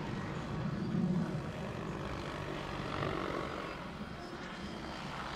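Vario AS350 Ecureuil electric scale RC helicopter in flight, its main rotor and electric drive running steadily, swelling a little about a second in and again about three seconds in.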